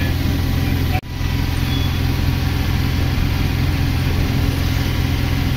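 Bus engine running steadily as the bus drives along a road, heard from inside the cabin. The sound cuts out for an instant about a second in.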